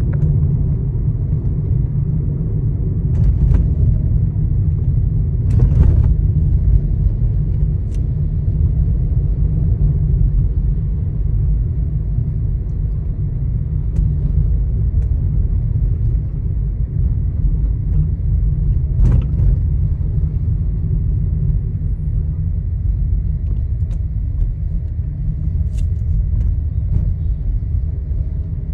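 Steady road and engine rumble inside the cabin of a moving Skoda Kushaq 1.0 TSI automatic, with scattered short clicks and knocks from the interior trim. These are the rattles the owner complains of from the dashboard, centre console and doors.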